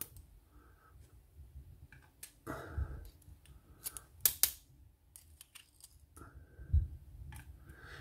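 Light metallic clicks and ticks of a small metal tool and loose pins working in a euro-profile lock cylinder as it is taken apart by hand. The clicks come scattered, with a quick cluster of sharp ticks about four seconds in, and a soft knock of handling near the end.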